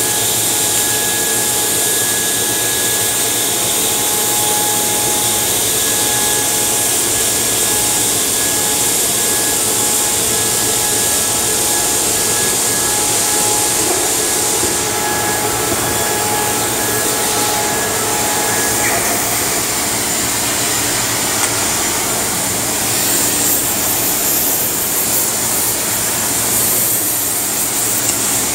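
Steady hiss of a portable carriage-mounted cutting torch cutting steel plate, with a faint steady whine that stops about two-thirds of the way through.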